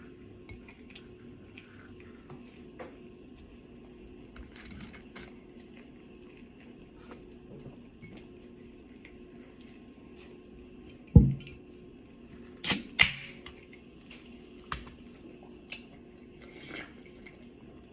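Person eating pizza: faint chewing and mouth sounds over a steady low hum, with a sharp thump about eleven seconds in and two sharp clicks a moment later.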